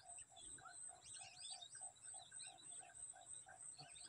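Faint whistled bird calls over a steady pulsing insect chorus, with an even run of short low notes about five a second.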